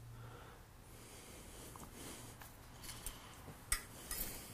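Quiet machine-shop room tone with a low steady hum. About three and a half seconds in comes a single sharp click, then a short cluster of small metallic clicks and taps near the end as hand tools are handled at a stopped lathe.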